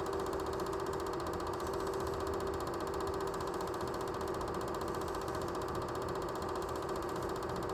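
Super 8 film projector running: a steady motor whir with a rapid, even clatter from the film advance.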